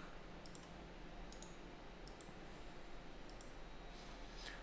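Faint computer mouse clicks, about half a dozen spread through at irregular intervals, some in quick pairs, over low room hiss.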